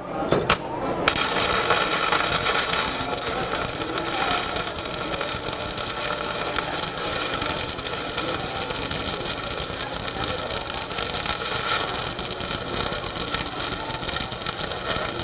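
Electric arc welding with a Kobeweld KB270 inverter welding machine. The arc strikes about a second in, then crackles and sizzles steadily.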